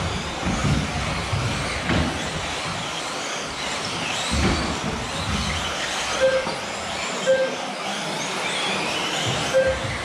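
Several 1/10-scale electric 2WD off-road RC buggies racing, their motors whining up and down in pitch as they accelerate and brake, with scattered low thuds from the cars. Short beeps sound three times in the second half.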